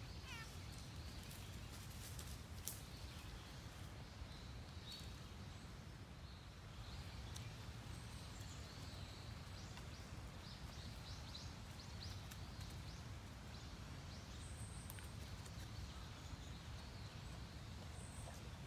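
Quiet outdoor ambience with a steady low rumble. A short falling call sounds just after the start, and faint high chirps are scattered through, thickest in the middle.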